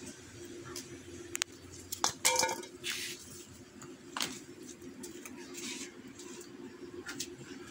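Scissors snipping okra stems and pods landing in a perforated metal colander: a few sharp clicks, with a short metallic clink about two seconds in. A steady low hum runs underneath.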